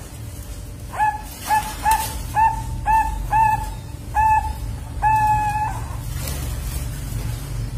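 Young Bangkok-line zebra dove (perkutut), about two months old, cooing a series of about eight short clear notes, ending on one longer note. It is a juvenile still learning its song.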